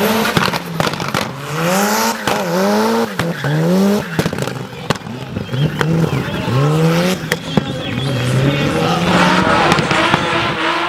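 Mitsubishi Lancer Evolution's turbocharged four-cylinder race engine revving in short bursts, its pitch climbing and dropping about once a second, with sharp bangs in between.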